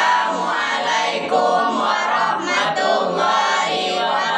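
Music with a choir of voices singing together, loud and continuous.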